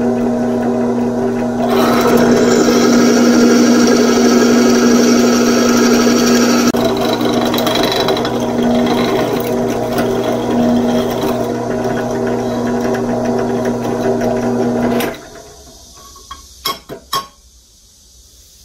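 Drill press running with a steady motor hum as its twist bit bores through the steel handle of a pipe wrench. About two seconds in, the cutting gets louder and harsher for about five seconds. The drill stops suddenly a few seconds before the end, followed by a few sharp clicks.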